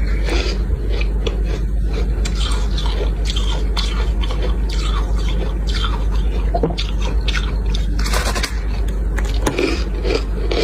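Freezer frost being scraped and bitten: irregular crisp scraping and crunching strokes, one after another, over a steady low hum.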